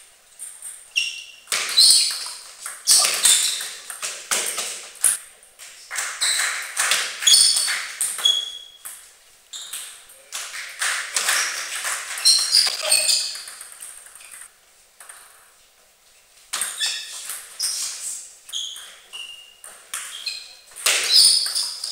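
Table tennis rallies: the celluloid ball clicking in quick succession off the table and the players' rubber-covered bats, each hit a short sharp ping. Play pauses for a couple of seconds about two thirds of the way through, then starts again.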